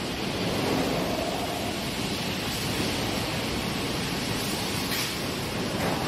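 Steady, even rushing noise of a sawmill line as a pine log is fed on a chain conveyor through the saws.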